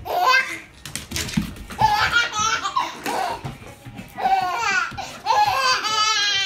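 A baby laughing hard in about four bouts of rapid, pulsing belly laughs, with short pauses between them.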